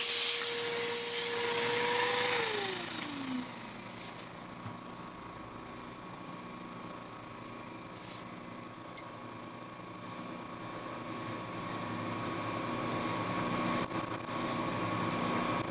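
Milling machine running with an end mill cutting a slot in brass, giving a steady high whine over the motor's hum. About ten seconds in, the cut breaks off, and the whine drops out and returns in short spurts.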